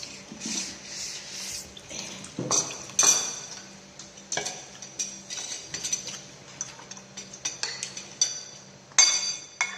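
Eating utensils clinking and scraping against dishes in an irregular run of sharp clicks with short, high ringing. The loudest clinks come about three seconds in and again about nine seconds in.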